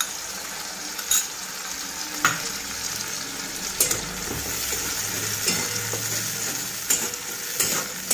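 Green paste of coriander leaves, ginger, garlic and green chilli sizzling in hot oil in a metal kadai while a flat spatula stirs it, with sharp knocks and scrapes of the spatula on the pan every second or so.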